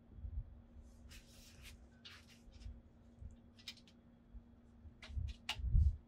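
Handling noise from a camping hanger stand being set up: scattered rustles and light clicks, with a couple of soft thumps near the end, over a faint steady hum.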